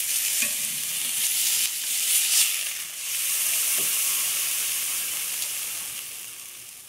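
A cooked sirloin steak and hot fat sizzling in a cast iron skillet, with a few light clicks of metal tongs as the steak is lifted out. The sizzle dies away toward the end.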